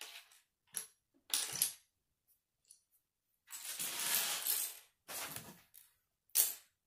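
Small plastic Lego bricks rattling and clinking together in a series of short bursts, the longest lasting about a second and a half in the middle.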